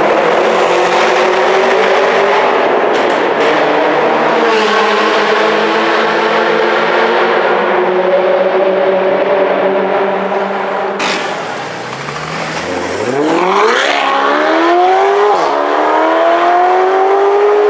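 Sports-car engines echoing in a road tunnel: first running at fairly steady revs as cars cruise through. Then a Mercedes-Benz SLS AMG's V8 accelerates hard from low revs, its pitch climbing steeply, dipping once at a gear change and climbing again.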